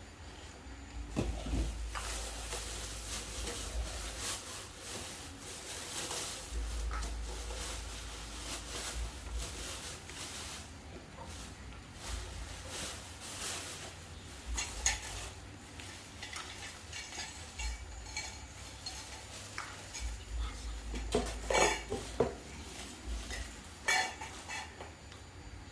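Kitchenware being handled: scattered clinks, knocks and scraping of utensils and pots, with a cluster of louder knocks about 21 seconds in.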